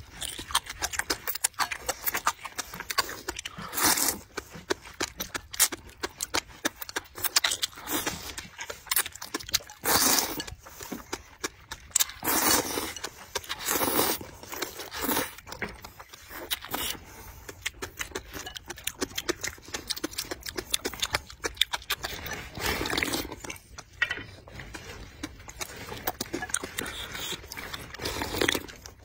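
Close-up eating sounds: slurps of spicy noodles and broth, several of them long and loud, with many short wet clicks and smacks of chewing between them. Near the end the broth is slurped straight from the lifted bowl.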